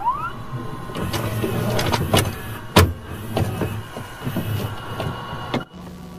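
Horror-film trailer sound effects: a quick rising swoop, then a run of sharp hits and low booms over a rumble, the loudest hit about three seconds in, cutting off abruptly near the end.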